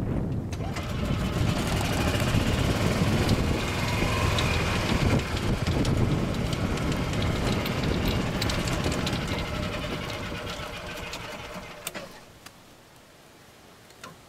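A golf cart moving across a fairway, its motor running and the cart rumbling over the grass, with wind on the microphone. The noise drops away sharply about three-quarters of the way through, leaving quiet outdoor background.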